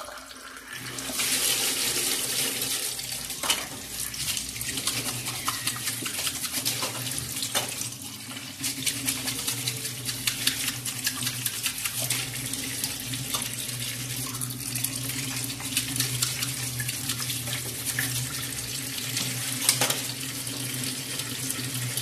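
Tap water running hard into a sink full of plastic bird drinkers, starting about a second in, with occasional clicks and knocks as the plastic drinkers are scrubbed and moved about.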